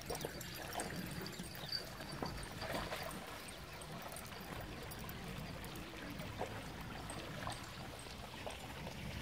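Water splashing and trickling as dogs wade through a shallow stream, with scattered short splashes.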